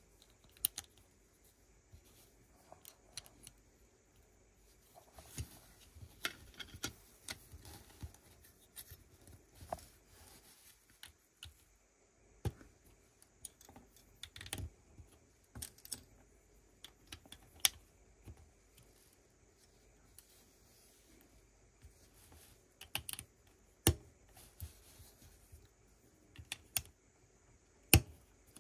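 Plastic Lego pieces being handled and pressed together: irregular sharp clicks and light rattling, with a few louder snaps near the end.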